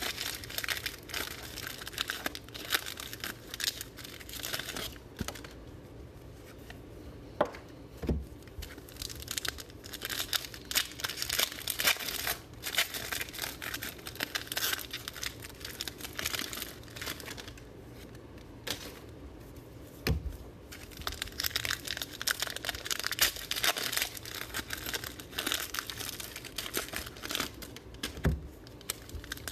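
Plastic wrapping of a sealed trading-card box and its packs crinkling and tearing as it is opened by hand, with a few soft knocks.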